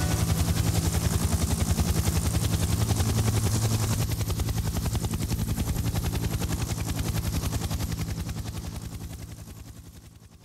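Helicopter rotor blades chopping in a fast, even pulse over a low engine hum, fading away over the last couple of seconds.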